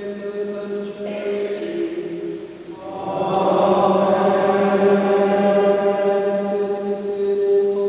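Sacred music during a church recession: a steady held chord with a constant low drone, which grows fuller and louder about three seconds in as more upper notes join.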